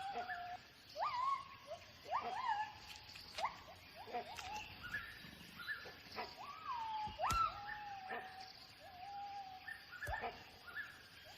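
Gibbon calls: a run of whooping notes, about one a second, each sweeping quickly up in pitch and often levelling off into a held tone. These are the loud territorial calls gibbons use to ward off intruders.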